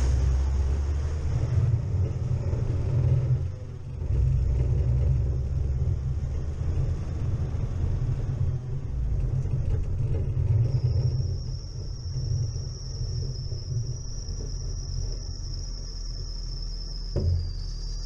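Chevrolet Niva driving along a snowy forest track: a continuous low rumble of engine and tyres that dips briefly about three seconds in. A thin high whine joins about two-thirds of the way through, and there is a single thump near the end.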